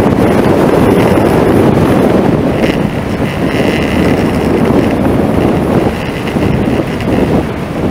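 Wind rushing over the microphone of a car-mounted camera, over the engine and tyre noise of a car driving at speed.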